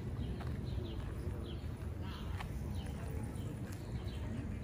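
Street ambience: birds chirping repeatedly in short falling notes over a steady low hum of city traffic.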